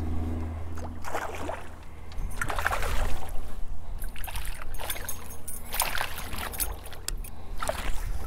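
A hooked smallmouth bass thrashing at the water's surface beside a boat, in several separate bursts of splashing, the last as it is swung out of the water near the end. A low steady hum runs underneath, strongest in the first second.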